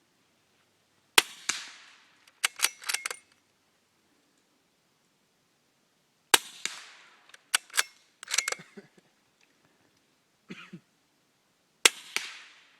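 Three subsonic .44 Magnum shots from a suppressed Ruger 77/44 bolt-action rifle, about five seconds apart. Each is a short, sharp crack that fades quickly. After each of the first two, a quick run of metallic clicks as the bolt is worked to chamber the next round.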